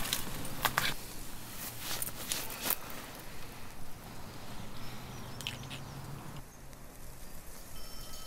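Dry sticks and twigs crackling and snapping in short bursts as branches are handled and laid on a pile of brushwood, most of it in the first few seconds. Faint chime-like tones come in near the end.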